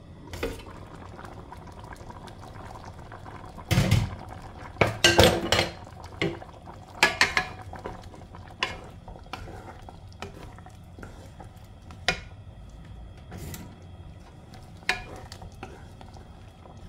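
Wooden spatula stirring coconut-milk stew in a nonstick pan, knocking and scraping against the pan every second or two. A louder clatter about four to five seconds in as the glass pot lid is lifted off and set down.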